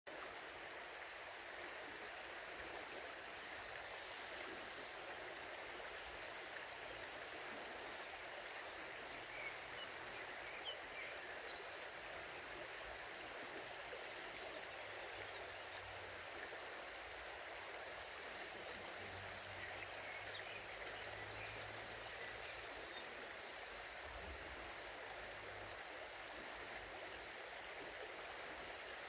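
River water flowing steadily over the shallows. Partway through, a small bird sings a quick run of high, rapidly repeated notes.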